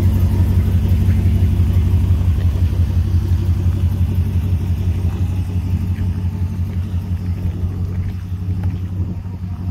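2019 Ram pickup's custom exhaust, catless with no rear resonators and only a 40 series muffler, idling with a steady low rumble. It fades gradually as the distance from the truck grows.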